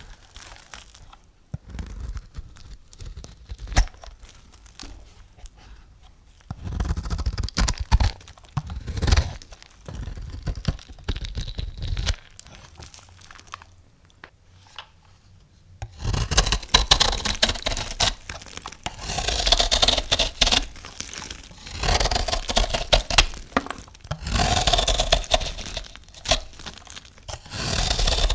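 A knife cutting through soap, making dry crunching, crackling strokes. They come sparse and soft at first, then in a cluster of bursts, and after a quieter spell in dense, almost continuous runs through the second half.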